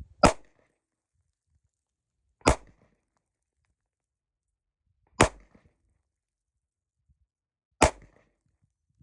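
A Ruger LCRx 9mm snub-nose revolver firing four single shots, evenly spaced about two and a half seconds apart.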